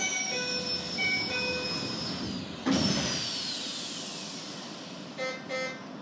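Train stopped at a station before departure: a short chime of changing tones plays, then the sliding doors close with a sharp clunk and a falling hiss of air from the door mechanism. Two short beeps sound near the end, the signal to the driver that the doors are shut.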